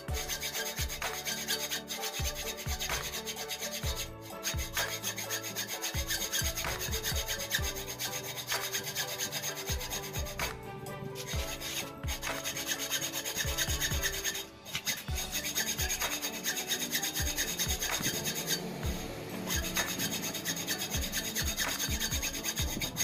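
Hacksaw cutting through a motorcycle brake master cylinder clamped in a vise: steady back-and-forth rasping strokes of the blade on metal, with a few short breaks.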